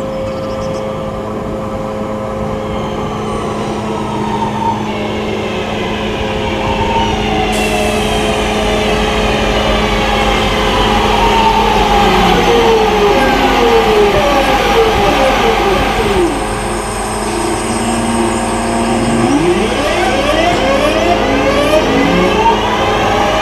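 A Class 323 electric multiple unit running through the station. Its traction motors whine in several gliding tones over wheel-on-rail rumble. The whine falls in pitch about halfway through as the train slows, then rises near the end as it pulls away.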